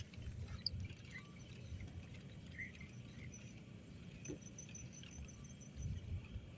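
Faint outdoor ambience with a low rumble and a few soft ticks, and a quick, even run of high chirps starting about four seconds in.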